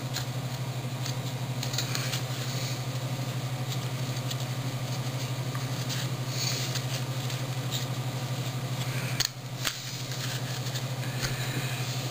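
Soft scattered rustling and shuffling of trading cards and pack wrappers being handled, over a steady low electrical hum. The hum dips briefly about nine seconds in.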